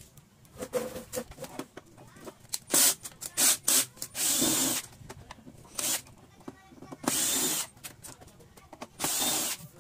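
Cordless drill-driver spinning in about six short bursts, with small clicks between them, as it backs the screws out of an LED TV's plastic back cover.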